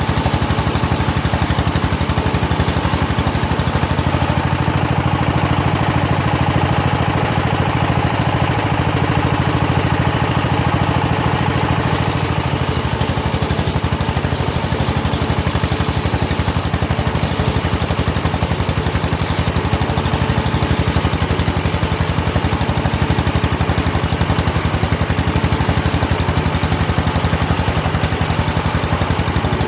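Engine of a homemade circular sawmill running steadily. Twice near the middle a higher hiss rises for about two seconds each, with the blade passing through teak.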